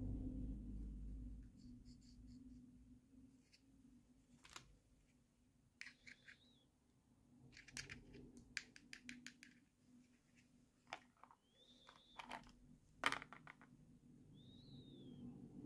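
Faint clicks and taps of small hard plastic toy pieces handled between the fingers, with a quick run of clicks in the middle and a single sharp click standing out near the end. A few short high squeaks of plastic rubbing come in between.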